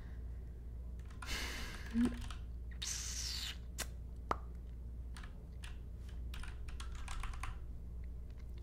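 Typing on a computer keyboard: a quick run of key clicks in the second half, after two short hissing rushes in the first few seconds, over a steady low hum.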